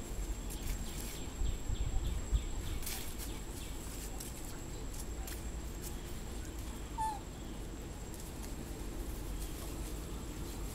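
Thin branches and leaves rustling and clicking as a young monkey climbs through a tree, over a steady low outdoor rumble. One short, high chirp about seven seconds in.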